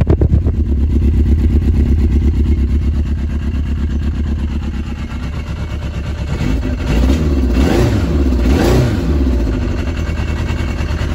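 Yamaha RX1 snowmobile's four-stroke inline-four engine running warm at a steady idle, then revved up and let back down twice about two-thirds of the way through.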